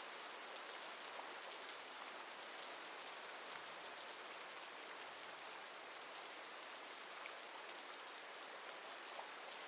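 Steady rain falling, an even hiss with many small drop patters.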